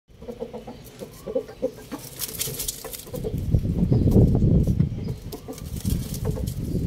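Chickens clucking in short, low notes. About three seconds in, a loud low rumble of noise takes over.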